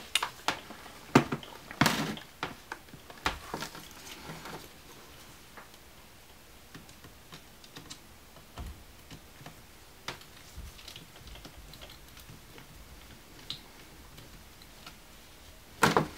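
Hands handling laptop screen parts: scattered light clicks and taps of plastic and metal as the LCD panel is tipped out of the lid. The clicks are busiest in the first few seconds, sparse in the middle, with a louder clatter near the end.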